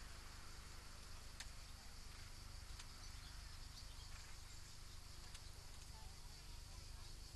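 Faint outdoor ambience: insects buzzing steadily and high-pitched over a low steady rumble, with a few faint isolated clicks.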